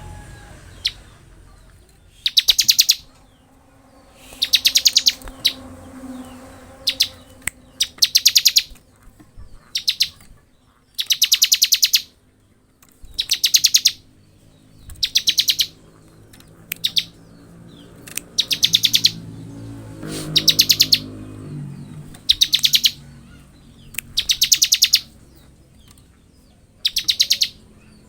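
Bar-winged prinia (ciblek) singing its 'ngebren' song: loud, very fast rattling trills of high notes, each burst under a second long, repeated every couple of seconds, with a few single chirps between.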